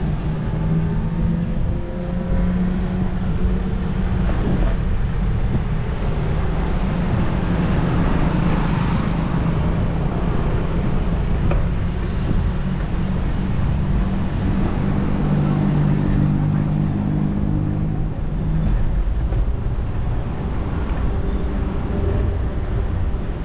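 City street traffic noise: a steady, loud rumble with the hum of motor vehicle engines heard from a moving bicycle.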